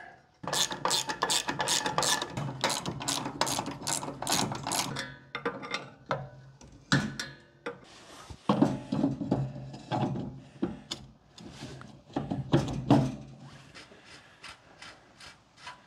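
Hand ratchet clicking in quick runs while a front brake drum is fitted and its spindle nut run down, with a few metal knocks from the drum and brake parts.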